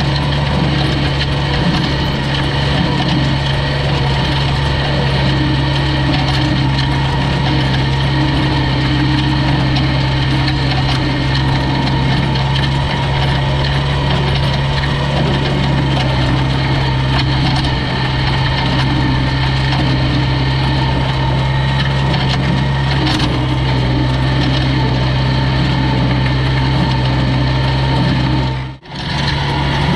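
Farmall 560 tractor engine running steadily under load, driving a New Holland Super 66 small square baler through its PTO shaft as it picks up a windrow of hay. The sound breaks off briefly near the end.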